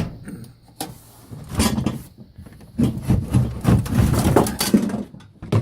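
Irregular knocking, scraping and rattling of tools and tool-box parts being handled, with a sharp knock near the start and a denser run of clatter in the second half.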